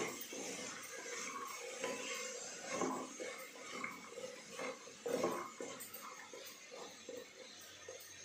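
Wooden spatula stirring chopped vegetables in an open pressure cooker: irregular scrapes and knocks against the pot, loudest about three and five seconds in.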